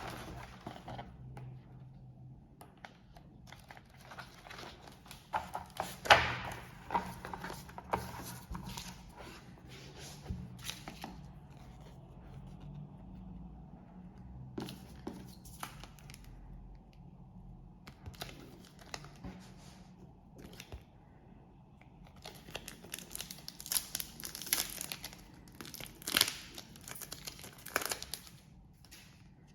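Trading-card pack wrappers being torn open and crinkled, in irregular rustling crackles, with a sharp loud tear about six seconds in and denser crinkling near the end.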